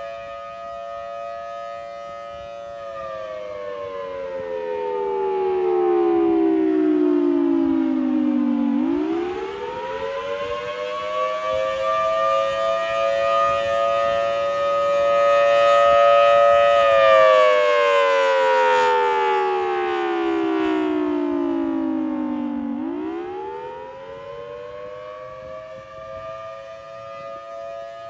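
Federal Signal Thunderbolt 1000T outdoor warning siren sounding the attack signal: a two-note wail held steady, then sliding slowly down in pitch and winding quickly back up, twice. Its loudness swells and fades as the wail goes on.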